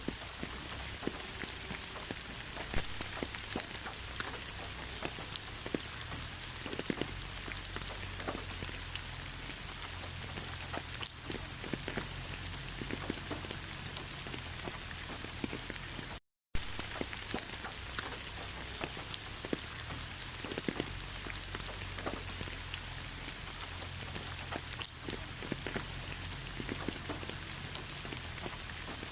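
Steady rain falling on a surface, with many individual drops tapping through a continuous patter. The sound cuts out completely for a fraction of a second about halfway through.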